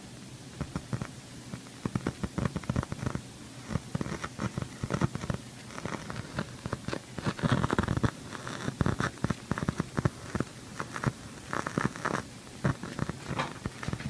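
KRK Rokit RP5 G2 studio monitor crackling and popping with irregular static over a low steady hum, thickest in clusters in the middle and latter part. This is a fault in the speaker itself, which the owner says fades once it has warmed up for a few minutes.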